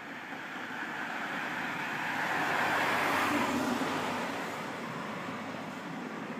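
A car driving past on a narrow street: the tyre and engine noise swells, is loudest about three seconds in, then fades away.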